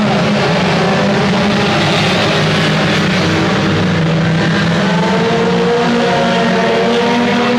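A pack of front-wheel-drive dirt track race cars running hard around the oval. Several engines are heard at once, their pitches overlapping and shifting as the cars pass.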